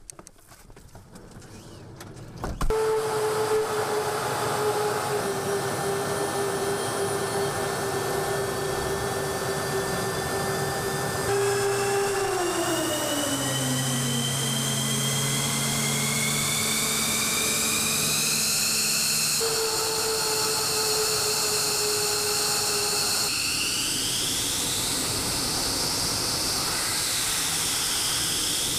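F-15 fighter jet engines running, starting abruptly a couple of seconds in: a steady rushing noise with high turbine whines. The whine glides down in pitch around the middle and rises and falls near the end.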